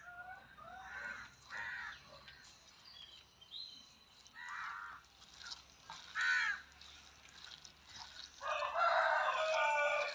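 A rooster crows once near the end, a long call that is the loudest sound here. Several short bird calls come before it.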